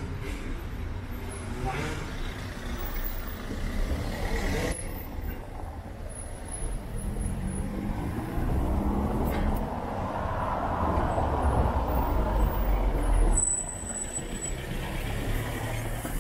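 Street traffic on a wet road: a car drives past close by, its engine and tyre noise swelling through the middle and dropping off sharply near the end.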